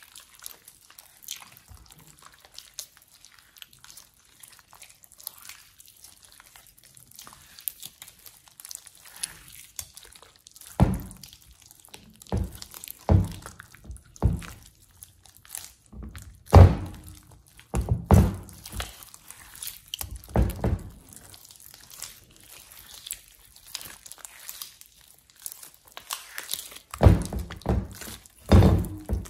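Hands squishing and kneading glossy slime in a glass bowl: faint sticky crackles at first, then from about ten seconds in, louder, irregular wet squelches and smacks as the slime is folded and pressed.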